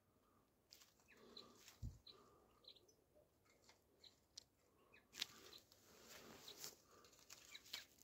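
Mostly near silence, with faint rustling and clicking as a European goldfinch is worked out of a mist net by hand. There is a soft thump about two seconds in and a few faint high bird chirps.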